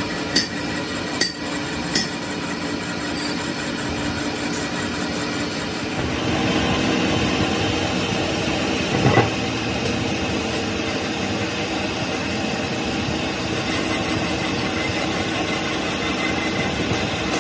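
Metal lathe running with a truck flywheel spinning in its chuck during resurfacing, a steady mechanical whir. A few sharp clicks sound in the first two seconds, the sound grows louder and fuller about six seconds in, and there is a single knock about nine seconds in.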